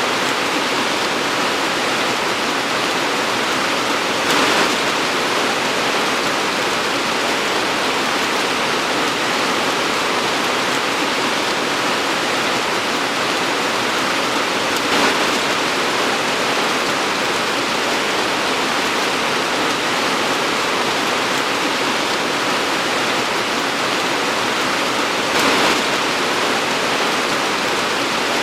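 Torrential rain pouring steadily in a dense, even hiss. It swells briefly louder three times: about four seconds in, about halfway, and near the end.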